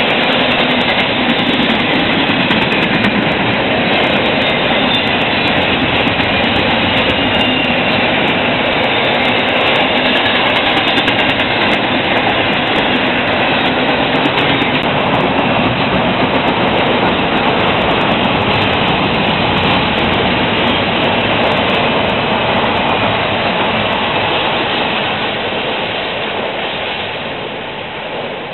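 Double-stack container freight train passing close by: a steady, loud rumble and rattle of well-car wheels on the rail, growing quieter in the last few seconds.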